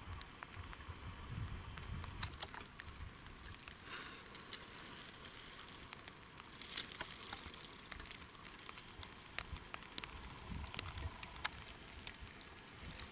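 Meltwater dripping during a thaw: irregular light ticks and patter of drops, over a low uneven rumble.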